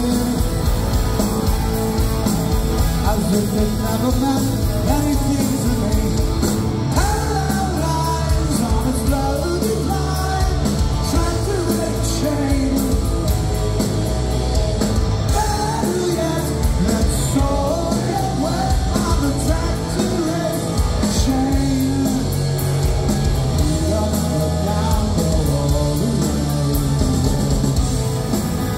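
Rock band playing live, with electric guitars, a drum kit and a lead vocalist singing, heard from within the crowd.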